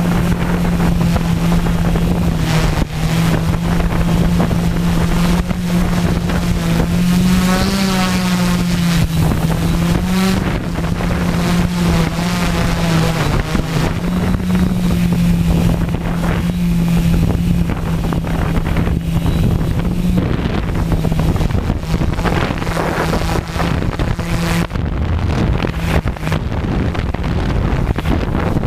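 Multirotor drone's electric motors and propellers humming steadily, with wind noise on the microphone. The pitch wavers up and down for a couple of seconds about eight seconds in as the motors change speed, and the hum turns uneven near the end.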